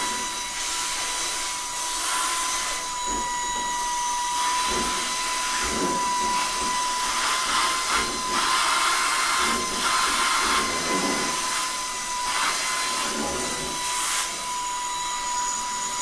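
Shark IONFlex cordless stick vacuum running with a steady high whine, sucking air through the narrow Lint Lizard hose pushed down a dryer's lint-trap slot. The rush of air swells and fades several times as the hose is worked in and out, against a resistance that the owner later blames for the vacuum overheating.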